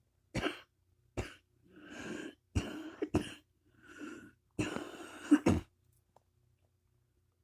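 A fit of harsh, hacking coughs, seven or so sharp ones with longer rasping breath sounds between them, acted out as whooping cough. It stops about five and a half seconds in.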